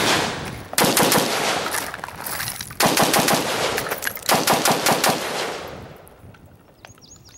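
SIG 556xi rifle in 5.56 firing rapid strings of shots. Several quick strings with short breaks between them, the last fading out about six seconds in.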